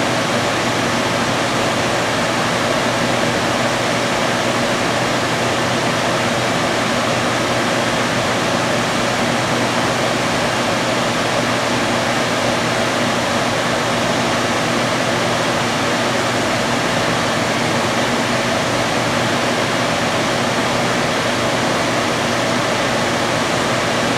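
Steady rushing hiss of a lampworking bench torch's flame as glass rod is melted in it, with a faint low hum underneath.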